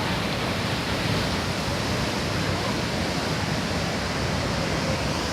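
Waterfall crashing into its pool: a steady, loud rush of falling water.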